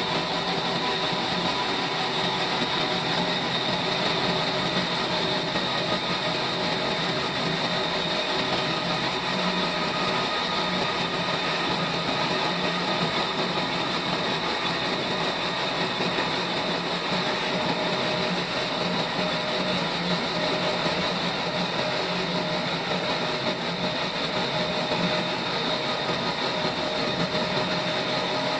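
Sawmill machinery running steadily, a constant mechanical hum with a high whine and no breaks or changes.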